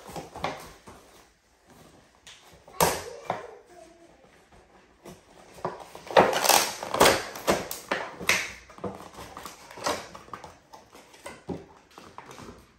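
Clear plastic wrapping and cardboard of a doll box crinkling and rustling as it is pulled open and handled, in uneven bursts that are loudest about six to eight seconds in.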